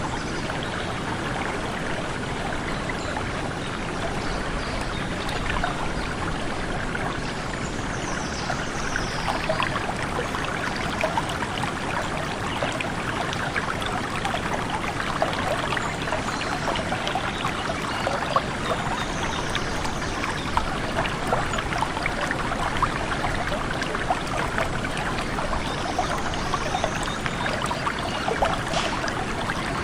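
Flowing stream water babbling and trickling steadily, full of small splashes. A bird gives a faint high call three times, spaced several seconds apart.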